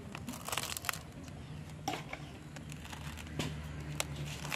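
A small knife cutting and scraping through the roots and rhizome of a Calathea lutea clump being divided, heard as a few separate crackling snips and scrapes.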